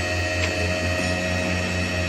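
Engine running steadily: a low hum pulsing about six times a second, with steady whining tones above it.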